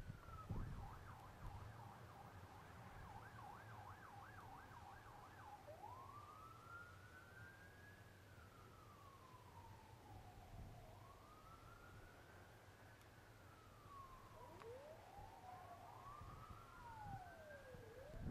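Faint emergency vehicle siren: a short wail, then a fast yelp warbling about three times a second for roughly five seconds, then slow rising-and-falling wails. Near the end two wails overlap.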